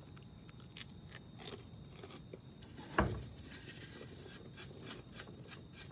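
Chewing a saltine cracker topped with a sardine: small crisp crunches scattered throughout, with one louder thump about three seconds in.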